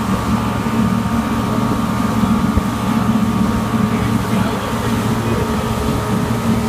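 Boat's outboard motor running steadily at speed while towing, over the rush of the churning wake water.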